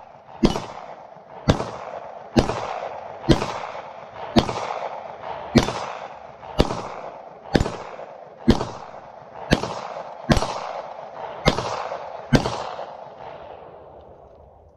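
A 9mm pistol fired slow and steady, thirteen shots about a second apart, each trailing off in echo; the shooting stops a couple of seconds before the end.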